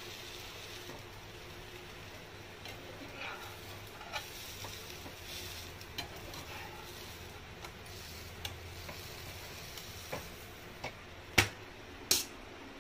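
Omelette frying softly in a nonstick pan, with a metal spatula scraping and tapping against it now and then. Two sharp knocks near the end.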